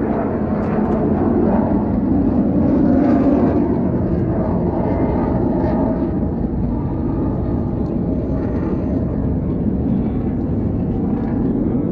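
A steady, loud engine drone with a dense rumble underneath, holding level throughout and cutting off abruptly at the end.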